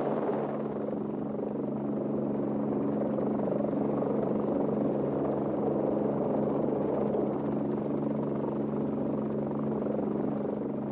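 Lockheed XH-51 helicopter in flight: a steady hum of engine and rotor, a few held low tones under an even rushing noise that does not change.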